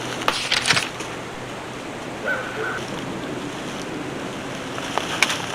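Steady rushing outdoor noise with a cluster of sharp clicks about half a second in and another click near the end.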